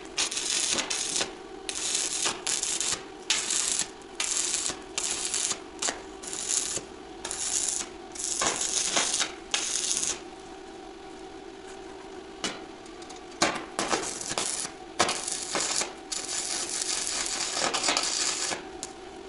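Stick-welding arc from a Blue Weld Prestige 216 Pro inverter welder, crackling in irregular runs of up to about a second with short breaks, over a steady hum.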